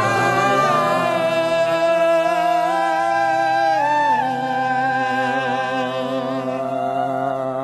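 Slow, sustained music of long held notes stacked in chords, with a gliding shift in pitch about halfway through and a thinner, slightly quieter texture near the end.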